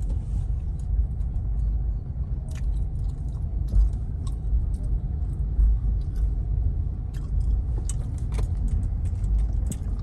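Steady low rumble of a moving vehicle, with frequent light rattling clicks over it.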